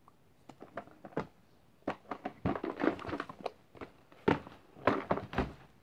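Irregular close clicks, knocks and rustles of hands handling a rubber-band bracelet and small objects right by the microphone, starting about half a second in and loudest in two sharp knocks near the end.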